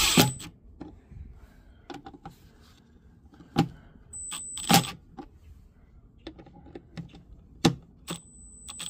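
Milwaukee Fuel brushless cordless driver run in short bursts on the Torx bolts of a car's charge port, each run giving a thin high whine. Sharp clicks and knocks of the bit and bolts come between the runs, the loudest a little after three and a half seconds, near five seconds and near eight seconds.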